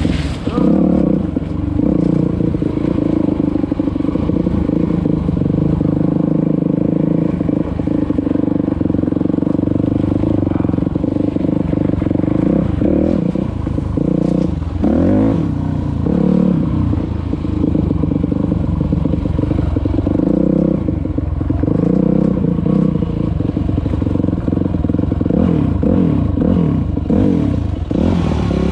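A vehicle engine running steadily, its pitch rising and falling now and then as the revs change.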